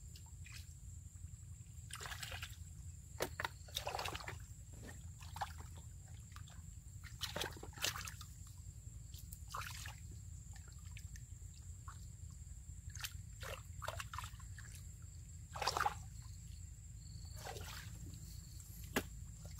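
Hands sloshing and splashing through shallow muddy water, in irregular splashes and squelches a second or two apart, with a faint steady high whine underneath.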